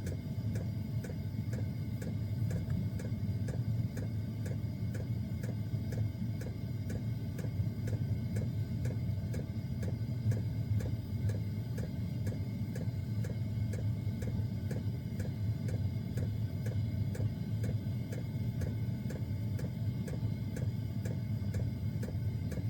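Small diesel air heater running: a steady low hum, with its fuel pump ticking evenly about two to three times a second.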